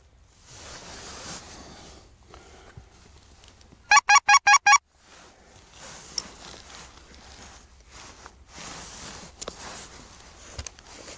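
Goose call blown close by: a quick run of five sharp honking notes, less than a second in all, about four seconds in. Faint rustling noise before and after.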